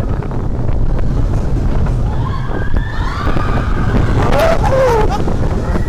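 Wind buffeting the microphone over the steady rumble of a mine-train roller coaster ride. From about two seconds in, wavering high cries slide up and down over it.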